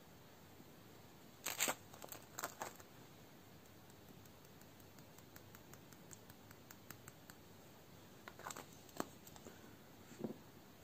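The plastic cap of a small glitter jar twisted open in a handful of sharp clicks and scrapes, then fine glitter shaken out onto a thin plastic dish as a long run of faint light ticks, ending with a few more clicks and brushing scrapes.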